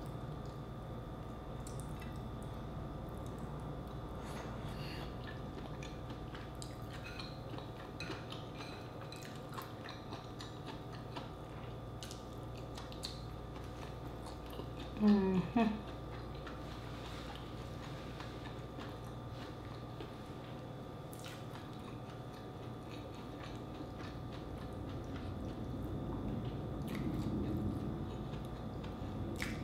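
Close-up eating sounds: fingers picking through sauce-covered seafood and rice, with scattered soft wet clicks and chewing, over a steady low hum. About halfway through there is a short hummed voice sound from the eater, the loudest thing in the stretch.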